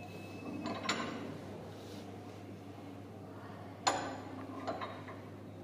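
Slotted metal dead weights being set down on a load cell's weight hanger, adding one kilogram for a calibration step. Two clinks, one about a second in and a sharper, briefly ringing one about four seconds in, over a steady low hum.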